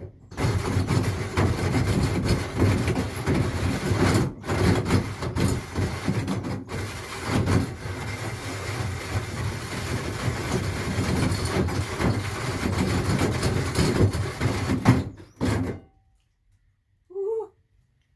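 A power tool cutting through material for a stove-pipe opening, worked with light pressure. It runs in long stretches with two short breaks, about four and six and a half seconds in, and stops a couple of seconds before the end.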